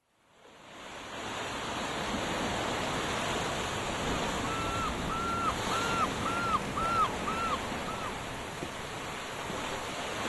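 Surf and wind off a rough sea, fading in from silence over the first second or two. About halfway through, a bird calls seven times in quick succession, each call rising and falling.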